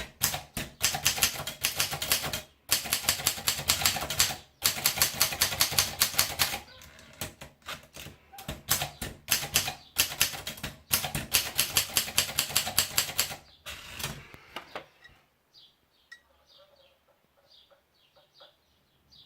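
Atlas S11 typewriter being typed on: rapid runs of key strikes clacking against the platen, with brief pauses between runs. The typing stops about fifteen seconds in.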